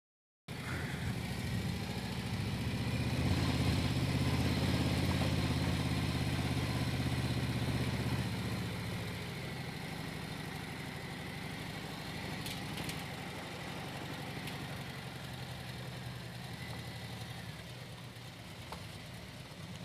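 Harley-Davidson Milwaukee-Eight 114 V-twin engine idling as it warms up before an oil change. It is louder for about five seconds, from around three seconds in, then settles to a steady idle.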